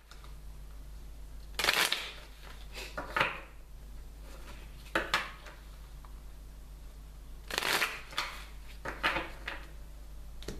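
A deck of tarot cards being shuffled by hand: short rustling, slapping bursts of a second or less, about five of them, with quiet gaps between.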